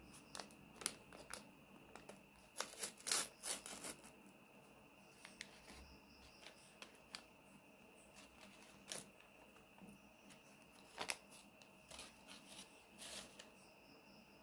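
Faint rustling, crumpling and tearing of a thin paper packet being opened by hand, in scattered bursts with the busiest stretch about three seconds in. There are light clicks of small plastic toys being set down, over a faint steady high whine.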